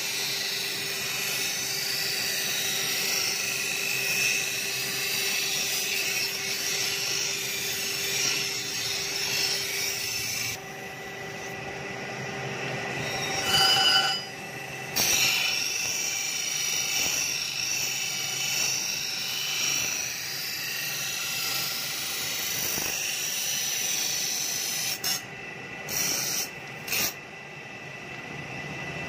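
Steel sickle blade pressed against a spinning belt-driven grinding wheel: a steady gritty grinding noise over the hum of the wheel. It dips for a few seconds about ten seconds in, comes back loudest with a short pitched whine around fourteen seconds, and cuts out briefly a few times near the end.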